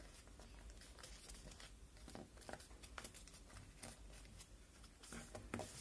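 Faint rustling and crinkling of a square of paper being folded and creased by hand, with a few soft crackles scattered through.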